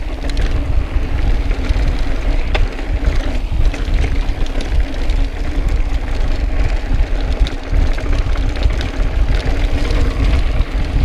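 Wind buffeting the microphone of a mountain bike rolling fast over bare sandstone slickrock, with tyre noise on the rock and scattered clicks and rattles from the bike.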